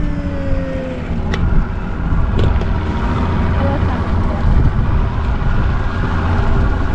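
Boat motor running steadily with wind noise on the microphone, with a couple of faint clicks.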